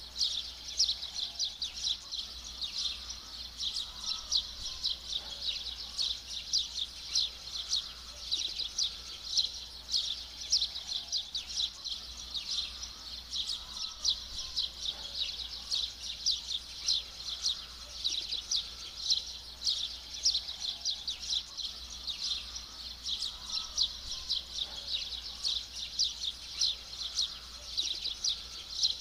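A continuous chorus of many small birds chirping rapidly and densely, high-pitched and unchanging throughout.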